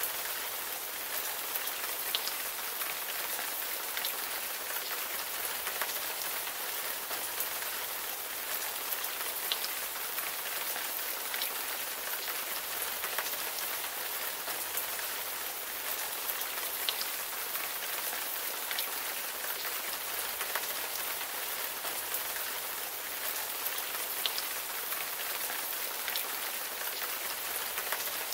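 Steady rain falling: an even hiss with a few faint isolated drop ticks.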